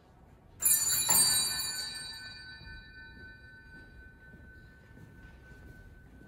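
A bell rung twice about half a second apart, a bright metallic ring with many tones that fades slowly over several seconds, one tone still sounding near the end.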